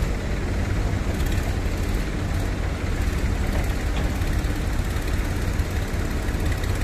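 Tractor's diesel engine running steadily under load as it pulls a heavily loaded sugarcane trolley forward, a low, even rumble.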